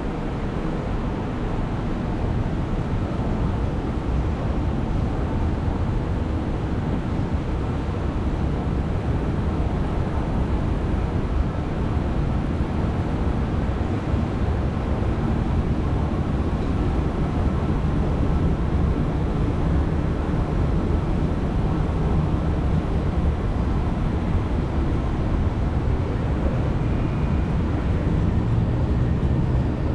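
Escalator running: a steady low rumble from its drive and moving steps.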